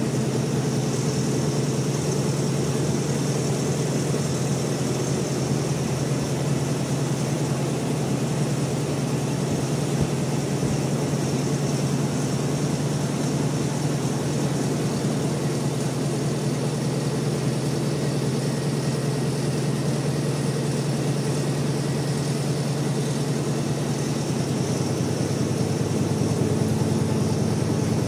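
Richpeace multi-head embroidery machine stitching quilted saddle pads, running steadily with a fast, even rattle of needle strokes. It grows a little louder near the end.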